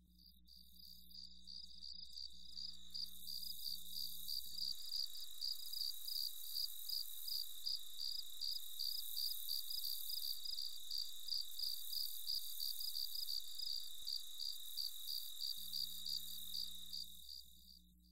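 Crickets chirping in an even, steady rhythm of about three high chirps a second, fading in over the first few seconds and fading out near the end.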